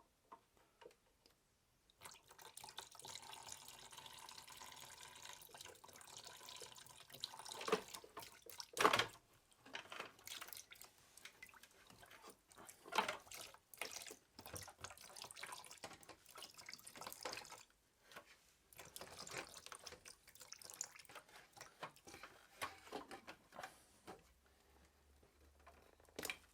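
Liquid running and dripping, starting about two seconds in, with scattered knocks and clicks throughout.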